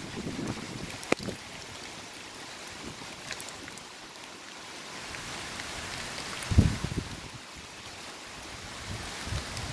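Steady hiss of rain and slushy hail falling in a storm, with a few sharp ticks. A gust of wind buffets the microphone about six and a half seconds in, the loudest sound here.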